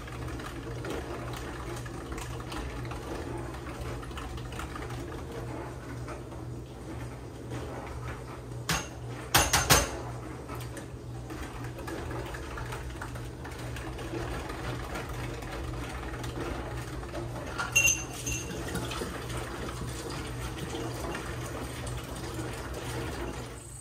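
Sugar syrup being stirred in a plastic pitcher with a long metal utensil, dissolving one part sugar in one part water: a steady swishing of liquid. A few sharp knocks come around nine to ten seconds in, and a short ringing clink near eighteen seconds. A low steady hum runs underneath.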